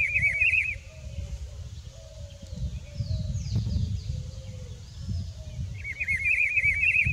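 Rufous-browed peppershrike (juan chiviro) singing: a quick phrase of about eight looping whistled notes at the start, given again about six seconds in. A low rumble runs underneath.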